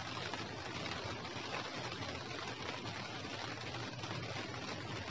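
Light rain falling steadily, an even hiss with no distinct drops standing out, over a faint low rumble.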